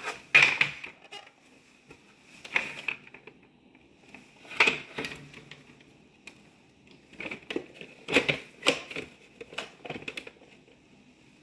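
Hard plastic housing of a SodaStream carbonator clicking and knocking as it is turned upright on the countertop and its parts are handled and fitted. The knocks come singly and irregularly, with the loudest about half a second in.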